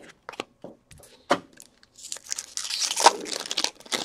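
Foil trading-card pack wrapper being torn and crinkled: a dense rustle that starts about halfway through, after a few light clicks of cards being handled.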